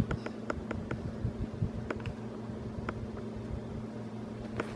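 Small dog mouthing and snuffling right at the microphone: scattered light clicks and rustles over a steady low hum.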